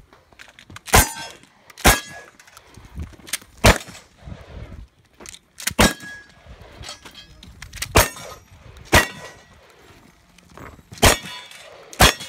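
Pump-action shotgun firing eight shots, irregularly spaced about one to two seconds apart, with smaller clacks in between.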